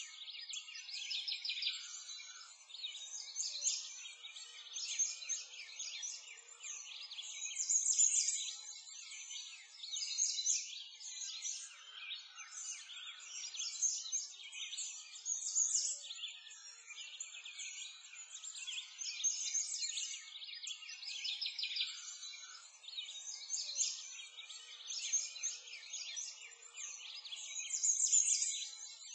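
A continuous chorus of small birds chirping and trilling, high-pitched and dense, with nothing lower beneath it.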